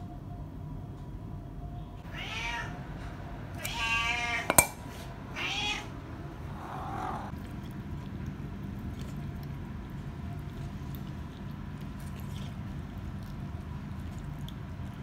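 Domestic cat meowing three times, the middle meow long and wavering, with a single sharp clink just after it. Then faint scattered ticks as the cat eats from a stainless steel bowl.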